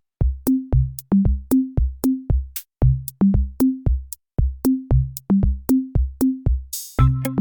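Background electronic music: a sparse drum-machine beat of deep kicks and sharp clicks with short bass notes, two to three hits a second. Near the end a short hiss sweeps in and fuller chords join the beat.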